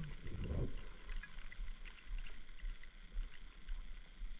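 Wind rumbling on the microphone in uneven gusts, with a brief low sound about half a second in and faint scattered ticks.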